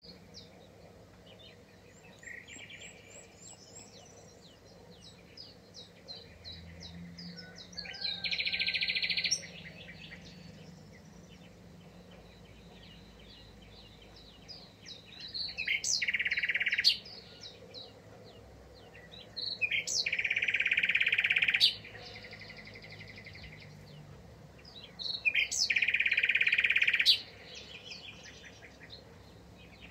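Small birds chirping and calling. Four times a loud, rasping buzzy trill lasting one to two seconds rises above the chirps and stops abruptly.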